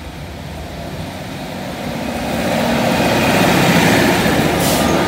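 Class 153 diesel railcars approaching and passing close by. Their engines and running gear grow louder over the first three seconds, then run steadily.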